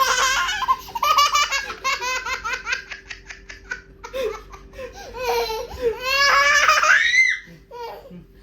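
A young child laughing hard in rapid bursts of giggles. A second long bout starts about four seconds in and ends in a rising squeal near the seventh second.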